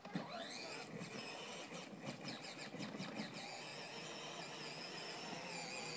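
Tractor engine running, with a high, wavering whine over it.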